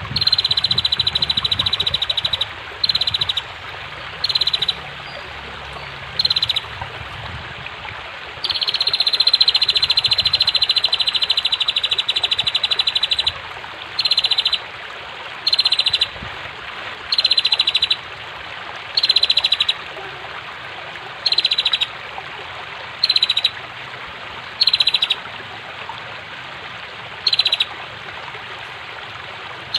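Female prenjak (prinia) giving its fast, dry rattling trill in short bursts every second or two, with one long run of about five seconds near the middle, over a steady rush of flowing water.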